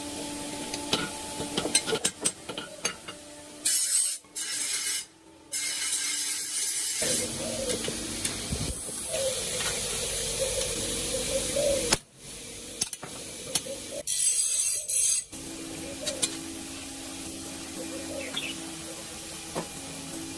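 Hot forged steel blade hissing and sizzling as it is quenched in the trough, with loud bursts of hiss. Near the end an electric forge blower hums steadily.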